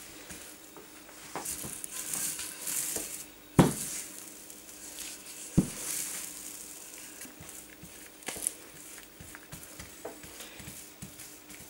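Plastic-gloved hands rubbing and smearing lard over a thin sheet of dough on a worktop, with soft rustling from the gloves. Two sharp knocks, about two seconds apart, stand out near the middle, with a lighter click later on.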